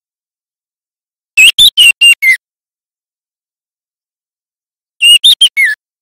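Juvenile white-rumped shama singing its practice song: two short phrases of about five rapid whistled notes, the last note of each sliding down in pitch, the second phrase about three seconds after the first.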